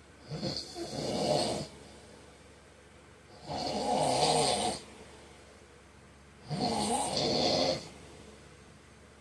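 A man snoring in his sleep: three long snores, each lasting over a second, about three seconds apart.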